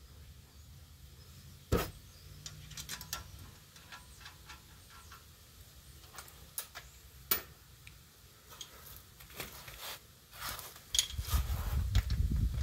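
Metal clicks and knocks as a new front brake caliper is worked onto its bracket over the pads and its bolts started by hand, with two sharper knocks. Near the end comes a louder stretch of low rumbling and clatter from handling.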